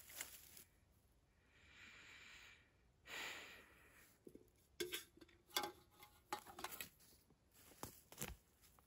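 Faint handling noise from pitching a tarp shelter: two soft swishes, then a scatter of light clicks and taps over the next few seconds.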